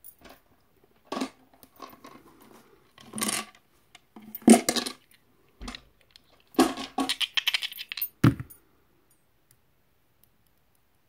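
Small hard objects clattering and rattling on a table in several short bursts, the longest a quick run of clicks about seven seconds in.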